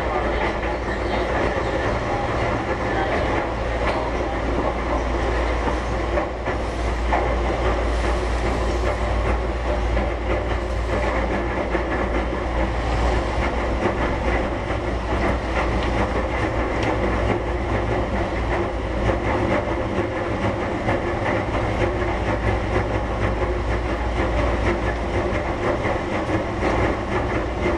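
Keihan 1000 series electric commuter train running, heard from inside the passenger car: a steady low rumble with wheels clacking over the rails.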